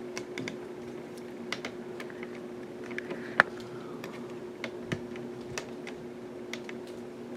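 Hunter Oasis ceiling fan running on high speed, its motor giving a steady buzzy hum. Irregular sharp clicks sound over the hum, the loudest about three and a half seconds in.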